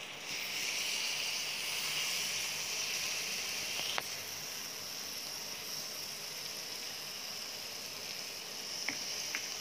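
Marinated paneer tikka skewers sizzling on a hot dosa tawa: a steady frying hiss, with a sharp click about four seconds in and two faint ticks near the end.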